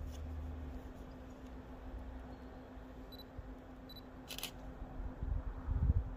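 Faint outdoor background at a railway platform with a steady low hum. Two short high chirps and a brief hiss come about three to four seconds in, and low rumbling swells near the end.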